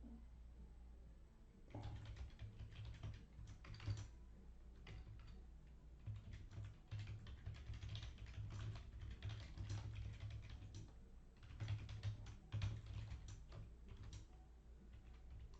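Packaging being handled and opened: quick, irregular clicks and crinkles, over a low steady hum.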